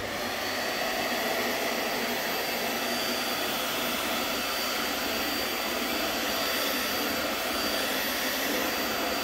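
Vax Mach Air corded upright multi-cyclone vacuum cleaner running steadily on carpet: an even rush of air with a faint steady high whine.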